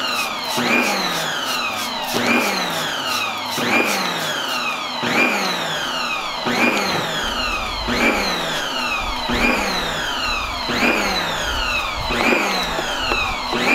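Background music: an electronic track built on a siren-like rising sweep that repeats about every second and a half over falling glides, with a deep bass coming in about halfway.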